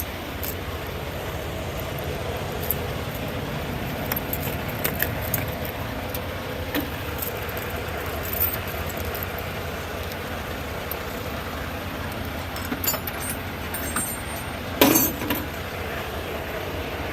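Scattered light metallic clicks and clinks of hand work on a truck's air-line glad hand, over a steady low rumble; a louder clatter comes near the end.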